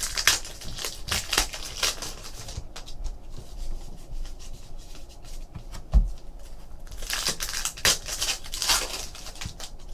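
Trading card packs and cards being handled: two stretches of crinkling, tearing and sliding, one at the start and one from about seven seconds in, with a single soft thump around six seconds.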